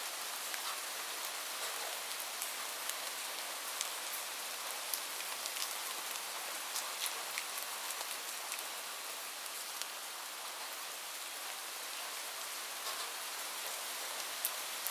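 Light rain falling steadily, a soft even hiss with scattered individual drops ticking on a surface.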